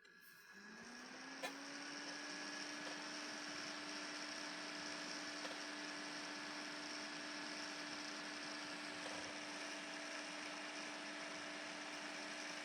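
Computer test bench powering up: its cooling fans spin up, a whir whose tone rises in pitch over the first two seconds and then holds steady. There is a faint click about a second and a half in.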